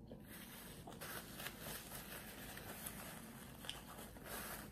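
Paper burger wrapper crinkling and rustling as it is handled, with many small crackles.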